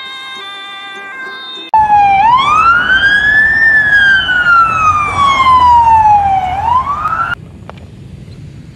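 Background music, then about two seconds in a loud police car siren wails: its pitch climbs quickly, slides slowly down over about four seconds, climbs again, and cuts off suddenly, leaving a quiet background.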